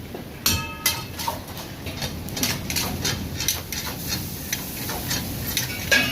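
Metal cookware clanking in a busy kitchen: spatulas and ladles strike karahi pans in irregular knocks, several a second, with a brief metallic ring about half a second in.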